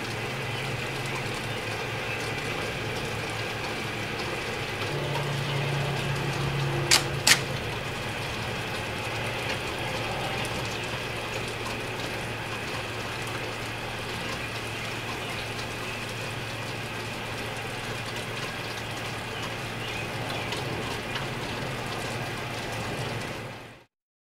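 Steady hiss with a constant low hum, broken by two sharp clicks about seven seconds in; it cuts off abruptly about a second before the end.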